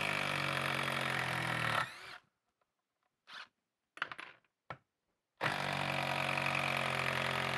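Hilti brushless impact driver running in reverse under load, backing a screw out of a wood block; it stops just before 2 s, a few light clicks follow as the bit is moved and seated, and it runs again from about 5.5 s on the second screw.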